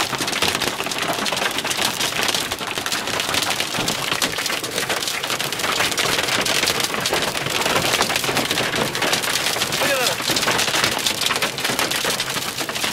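Hailstones pelting a vehicle's roof and windshield, heard from inside the cab as a dense, continuous clatter of rapid impacts over the rushing noise of the storm.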